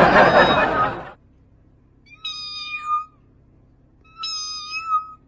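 A domestic grey-and-white cat meowing twice, two short calls of steady pitch that dip at the end, about two seconds apart. They follow a loud burst of rushing noise in the first second.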